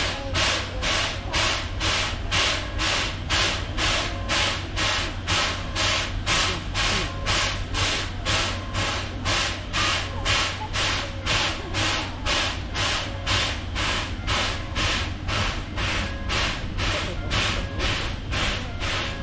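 Steam locomotive's air pump panting in a steady, even rhythm of hissing strokes, about two a second, over a low steady hum.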